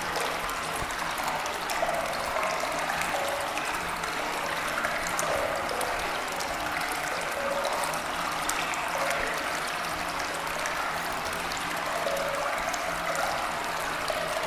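Steady, unbroken sound of running water, like a flowing stream.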